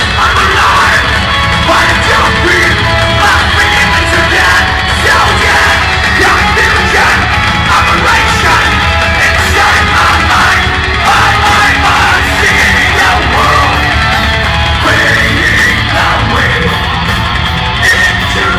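Heavy metal band playing live: electric guitars and drums with yelled vocals, loud and unbroken.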